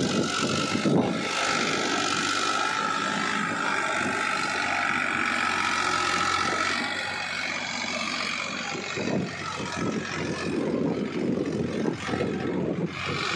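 Farmtrac 60 tractor's three-cylinder diesel engine running steadily under load, pulling a cultivator up a slope of loose soil. The low rumble becomes rougher and more uneven in the last few seconds.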